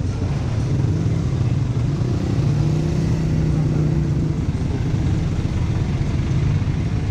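Busy street traffic with vehicle engines running close by, one engine's steady hum standing out from about two to four seconds in.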